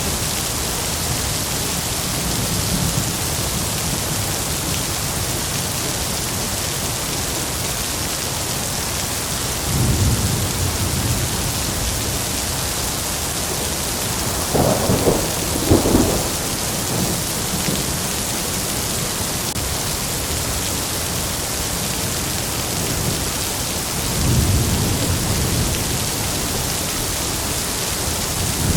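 Heavy rain falling in a steady hiss, with rolls of thunder rumbling low about a third of the way in and again near the end, and a sharper double crack of thunder about halfway through.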